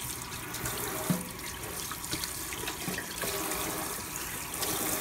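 Kitchen tap running into a stainless steel sink while hands are rinsed and rubbed under the stream.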